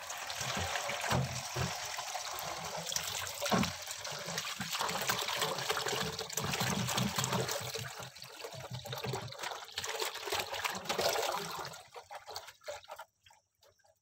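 Tap water running into a steel bowl and splashing over cut taro leaves. The flow stops about twelve seconds in, leaving small splashes as a hand moves the leaves in the water.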